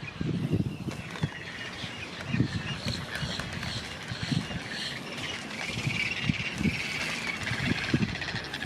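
Birds calling, a run of high, rapidly repeated chirps and trills, over scattered short low thumps.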